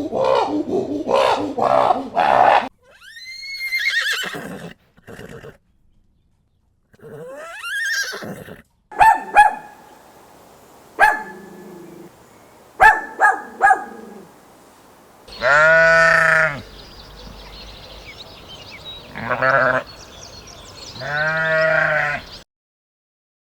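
A series of farm animal calls, one after another: short sharp cries and sweeps in pitch, then three long, wavering, pitched calls near the end.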